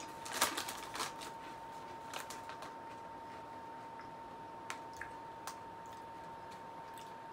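Crisp ketchup potato chips crunching as they are chewed: a few sharp crunches in the first second or so, then sparser, fainter ones.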